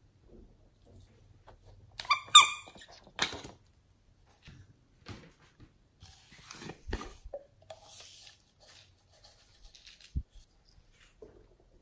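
Hollow plastic squeeze toys being squeezed in the hand. A short, loud squeak about two seconds in is followed by scattered clicks and rubbing handling noises, with a single dull thump near the end.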